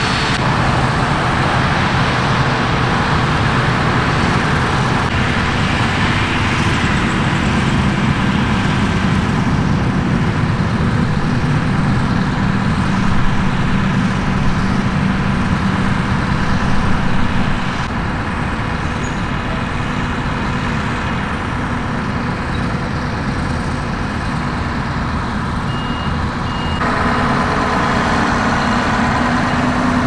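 Claas Lexion combine harvesters working a barley field: diesel engines and threshing machinery running steadily under load. The sound shifts twice, and a thin, high, steady whine joins near the end.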